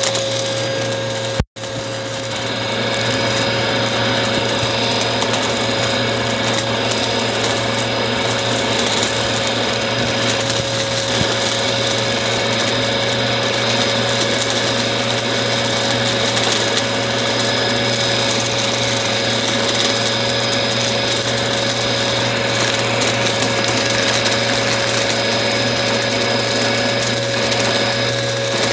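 Upright vacuum cleaner running steadily, its motor giving a constant whine over a broad rush of airflow. The sound drops out briefly about a second and a half in.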